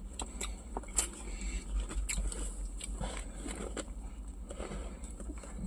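Close-up chewing and mouth noises of someone eating a chicken burger: irregular small clicks and smacks, over a steady low rumble.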